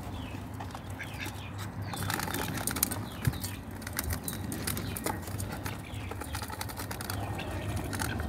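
Domestic ducks feeding together from a metal bowl: their bills click and dabble rapidly and irregularly in the food, with some quacking.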